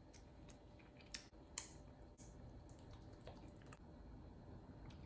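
Near silence: quiet room tone with a few faint clicks, the two clearest a little after one second in, half a second apart.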